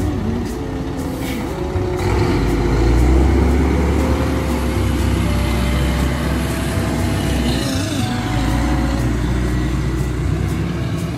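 Garbage truck's diesel engine running as the truck drives past and pulls away, a heavy low rumble that swells about two seconds in and dips briefly near the eight-second mark.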